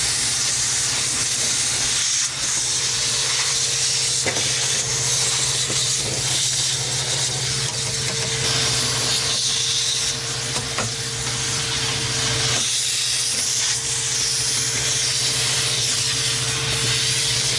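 Vacuum cleaner running steadily, its nozzle sucking up scraped seam-sealer flakes and rust debris from a car's trunk floor, with a low motor hum under the hiss of the airflow and a few faint clicks.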